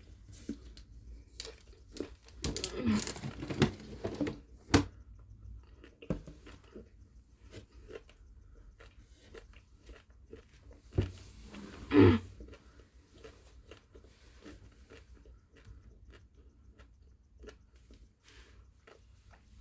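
A person biting and chewing a crunchy pistachio chocolate bar close to the microphone, with small crackles throughout, louder crunches about three seconds in, and the loudest bite about twelve seconds in.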